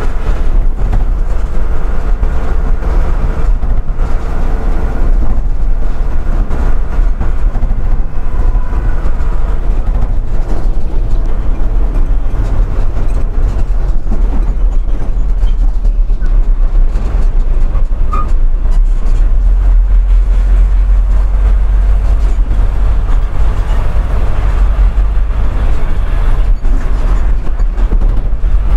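Loud, steady low rumble of a large vehicle's engine and tyres, heard from inside its cab while it drives.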